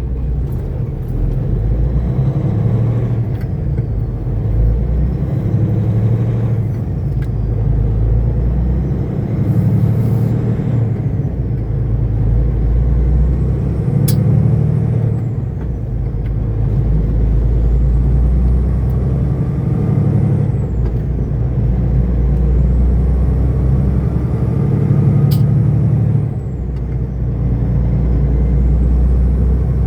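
Semi truck's diesel engine and road noise heard from inside the cab while driving. The engine note swells and drops back every few seconds, with a faint rising and falling high whine and two sharp clicks, one around the middle and one later.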